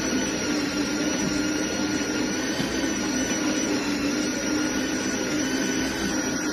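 De'Longhi La Specialista Arte Evo espresso machine running a motor steadily, a loud even whir with a steady whine over it.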